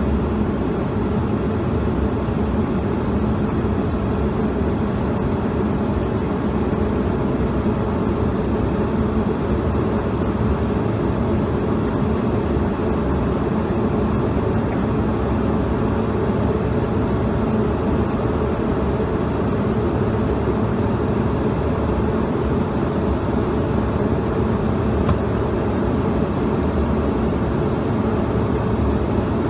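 Steady cabin noise inside a Bombardier CRJ-200 jet in flight: an even drone of its twin rear-mounted turbofans and rushing airflow, heaviest in the low range with a faint steady hum.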